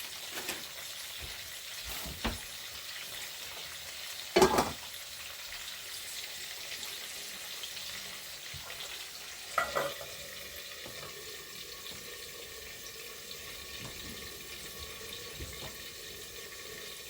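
Food frying in a covered pot, a steady sizzling hiss. A few sharp knocks cut in, the loudest about four seconds in.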